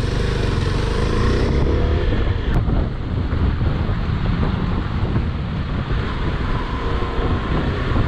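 Single-cylinder adventure motorcycle riding on. Its engine note shows clearly for the first two seconds, then sinks into a steady rush of wind and road noise.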